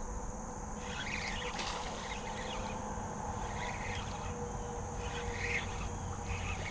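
Steady insect buzzing with short bird chirps now and then.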